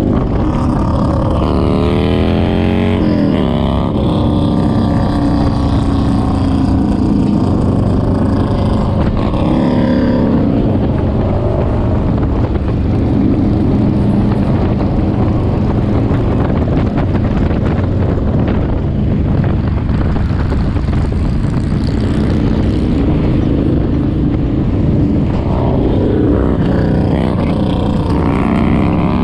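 Motorcycle engine running at road speed, with a steady drone and its pitch sliding up and down near the start, about ten seconds in, and near the end.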